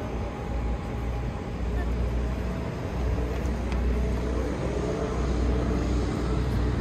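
Outdoor car-park ambience: a steady low rumble with people talking in the background.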